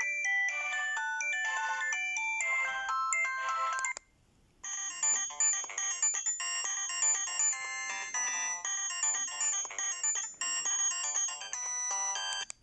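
Alcatel OT-316 mobile phone ringtones: one electronic melody of quick notes ends about four seconds in, and after a short pause another melody starts and plays on.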